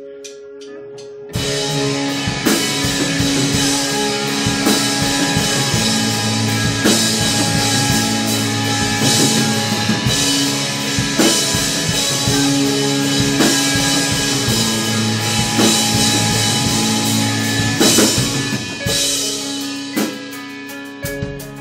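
Rock band playing live, with electric guitars through amplifiers and a drum kit. A held guitar chord rings alone for about a second, then drums and the full band come in loud; the bass drops out briefly near the end.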